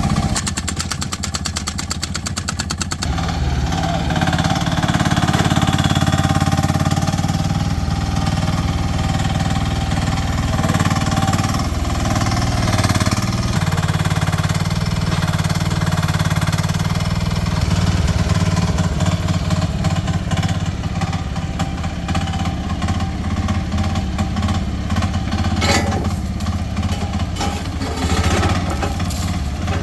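Small engine of a 1-ton mini excavator running steadily, its note shifting a couple of times as the load changes, with a fast, even ticking over the first few seconds.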